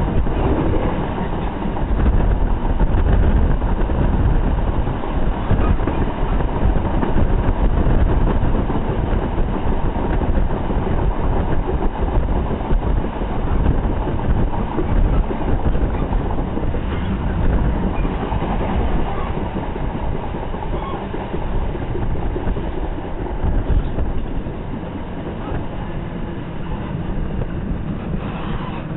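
Train running at speed, heard from inside a passenger coach: a steady rumble of wheels on the rails that eases slightly near the end.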